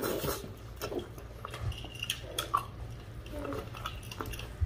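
Close-up eating sounds of a seafood boil: scattered clicks and cracks as crab legs and shrimp are pulled apart, with wet chewing and lip-smacking. A low steady hum runs underneath.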